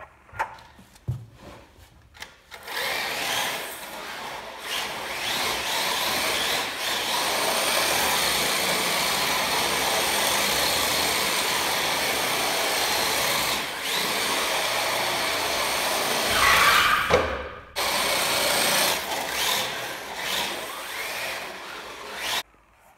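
A small electric motor running steadily for most of the time, rising in pitch briefly before cutting out for a moment and starting again.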